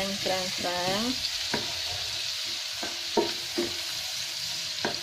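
Sliced shallots and garlic sizzling steadily in hot oil in a wok, stirred with a wooden spatula that scrapes the pan in several short strokes.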